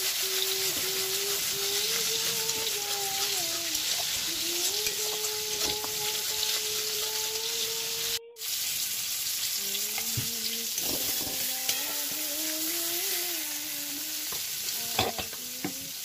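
Ground khaarkol leaf paste frying in a metal kadai: a steady sizzle, with a metal spatula scraping and tapping the pan as the paste is stirred and cooked down. A faint wavering tone runs underneath, and the sound breaks off for a moment about halfway through.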